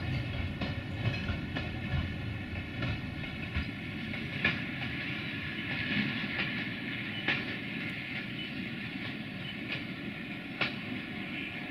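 Freight train wagons rolling on jointed track: irregular clacks of wheels over the rail joints over a steady rolling rumble, with a high steady whine.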